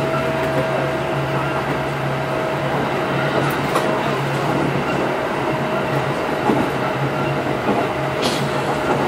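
Kintetsu 8810-series electric train running at a steady pace: an even rumble of wheels on rail with a steady low motor hum and a faint steady whine, and a few light clicks.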